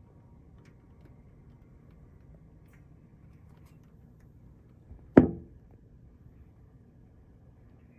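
A single sharp thump about five seconds in, dying away within half a second, over a faint low background.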